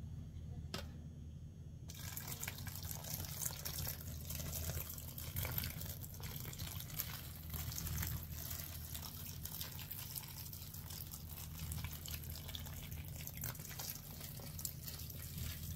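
Water poured in a thin stream from a glass container onto dry peat pellets in a plastic seed tray, trickling and spattering steadily from about two seconds in.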